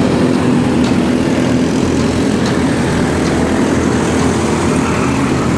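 Engines of small dirt-track microstock race cars running at speed around the oval: a steady, loud drone.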